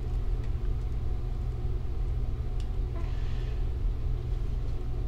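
Steady low background rumble, with a brief faint rustle a little after three seconds as the clothes of a small plastic doll are handled.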